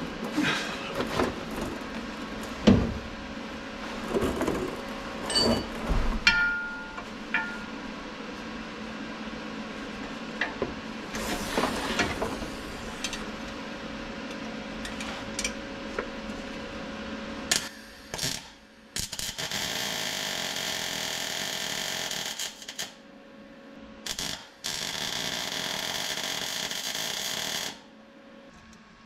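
Knocks and clatter of someone getting into position under a van, then two runs of MIG welding near the end, each a steady hiss lasting about three to four seconds.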